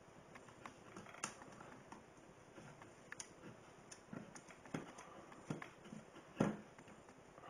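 Scattered light clicks and soft knocks from a plastic 32 A industrial coupler being handled while its cord clamp is screwed up. The loudest knock comes about six seconds in.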